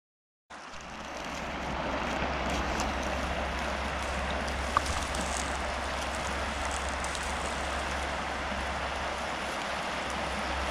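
Trout stream flowing steadily, starting abruptly about half a second in and building over the next second, with a single sharp click about five seconds in.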